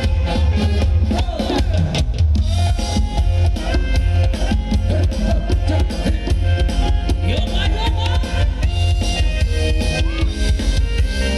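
Thai ramwong dance music played loudly by a live band, with a heavy bass and drum beat under melodic lines.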